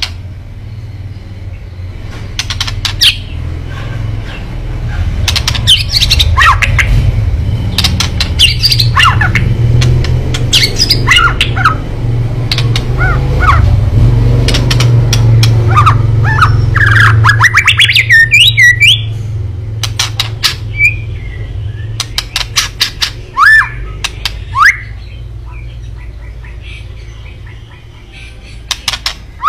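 White-rumped shama giving its harsh, excited 'kretekan' calls: runs of sharp clicks and ticks mixed with short whistled notes. A low steady rumble lies under it, loudest in the middle.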